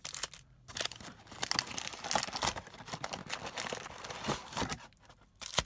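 Crinkly wrapping on a trading-card mega box being torn open and crumpled by hand, in an irregular run of crackles and rips with a couple of short pauses.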